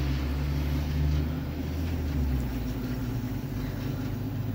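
Air conditioner running: a steady low hum with a hiss over it.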